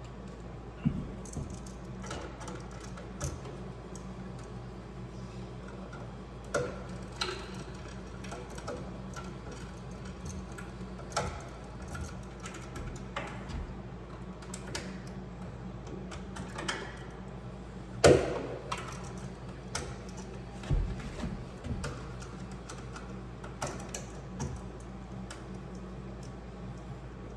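Scattered light clicks, taps and knocks of hand work on cabinet parts and tools being handled, over a steady low hum; one sharper knock comes about two-thirds of the way through.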